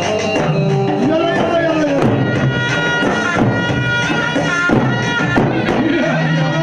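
Middle Eastern folk dance music with hand-drum beats under an ornamented melody that slides and wavers in pitch.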